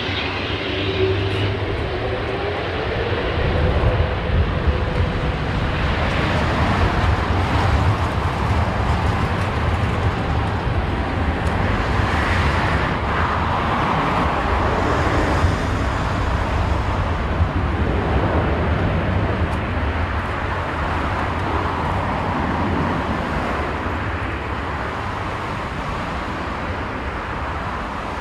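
Airbus A350-900's Rolls-Royce Trent XWB jet engines at takeoff thrust: a broad roar that swells over the first few seconds, holds, then slowly fades as the airliner climbs away.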